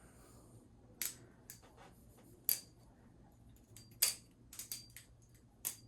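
Balisong (butterfly knife) being flipped freestyle: irregular sharp metallic clicks and clacks as the handles swing round and strike each other, with a short stop in the flow near the middle.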